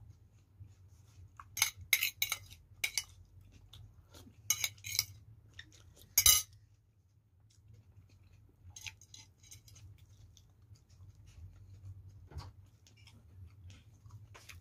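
A metal spoon clinking and scraping against a glass bowl and plate in short clusters of sharp clinks, the loudest about six seconds in, followed by softer scattered ticks.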